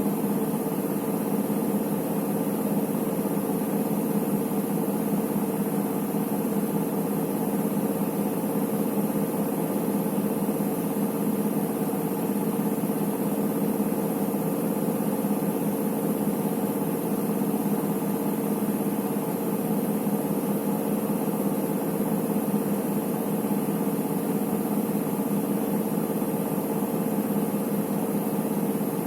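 Electrolux EWT 1377VIW top-loading washing machine with its drum spinning, a steady, even hum of motor and drum that does not let up.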